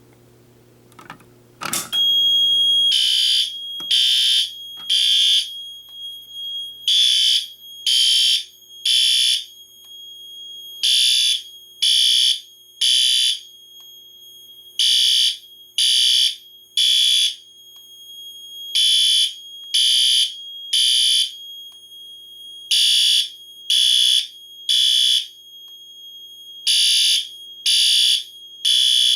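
Fire alarm system going into alarm: a sharp click about two seconds in, then horns sounding the temporal-three evacuation pattern, three blasts, a pause and repeat, over a continuous high steady tone.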